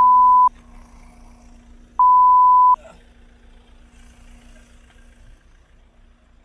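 Loud electronic beep tones at one steady pitch: one ends about half a second in, and a second beep of under a second follows about two seconds in. A faint low hum runs underneath.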